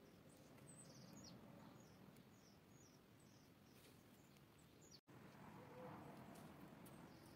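Near silence: faint room tone with a few faint, short high chirps scattered through it, and a brief dropout about five seconds in.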